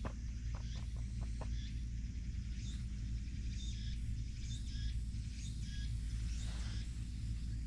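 Birds chirping in the background over a steady low rumble, with a quick run of small clicks in the first second and a half.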